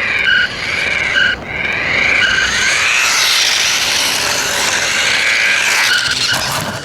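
Electronic sound effects from a RadioShack Sound Bat 2 toy's small loudspeaker: a tone swooping up and down several times, then a long harsh hiss, ending with a few short beeps.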